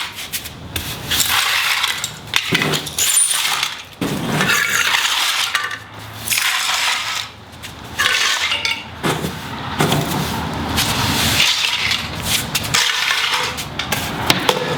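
Plastic housing of a Harmony remote charger being broken apart, with irregular cracking, scraping and clinking of loose pieces.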